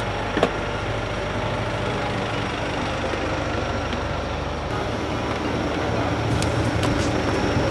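Steady engine and road rumble of a moving vehicle, growing slightly louder near the end.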